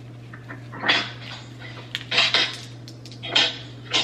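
Four short scrapes and clatters of utensils against containers, about a second apart, as bleach-mixing supplies are handled.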